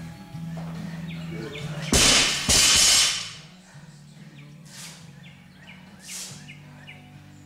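Loaded barbell, a 20 kg bar with 25 lb plates, dropped to the floor about two seconds in: a loud crash and a second impact as it bounces, then the plates settle.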